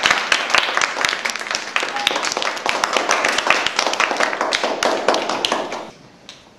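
A class of children clapping, a fast irregular patter of many hands that dies away near the end.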